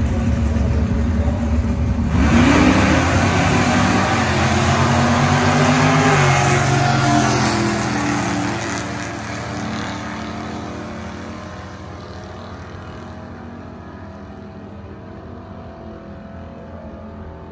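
Two Tri-Five Chevrolet drag cars launch at full throttle about two seconds in. Their engines rev up in repeated rising sweeps as they pull away, then fade into the distance down the strip.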